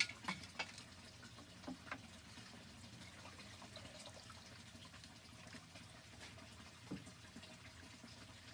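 Hand net dipped into and lifted out of a metal bucket of water: a few sharp knocks and splashes in the first two seconds and one more near seven seconds, over faint steady trickling and dripping.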